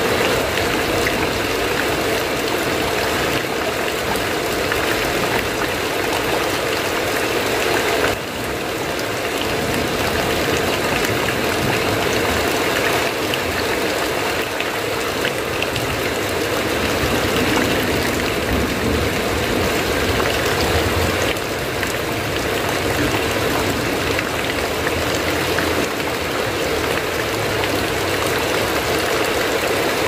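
Heavy rain falling steadily on a metal roof, a dense even patter with no let-up.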